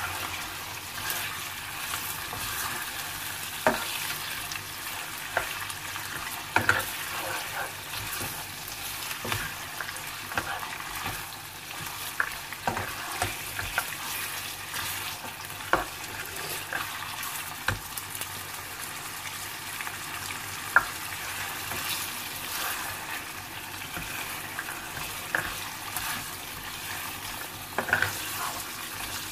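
Lamb pieces sizzling in hot oil in a frying pan while being browned with ginger-garlic paste and cumin, stirred with a spatula that scrapes and knocks against the pan now and then.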